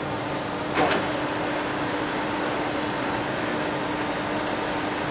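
Steady hum of workshop machinery, an even noise with one constant low tone running under it, with a single short knock about a second in.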